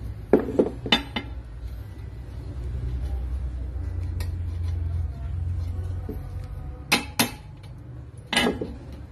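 Steel parts clinking and clanking against a steel plate as a flat bar and a steel bending holder are handled on a homemade bending jig: a few sharp, ringing metal clinks in the first second and a few more near the end, with a low rumble in between.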